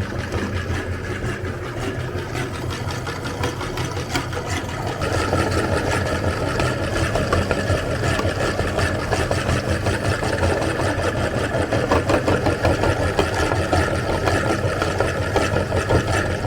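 Electric meat grinder running with a steady motor hum while cookies are ground through it. The sound grows louder and rougher about five seconds in.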